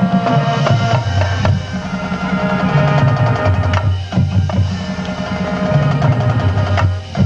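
High school marching band playing: sustained low notes that move in steps over drum and percussion strikes.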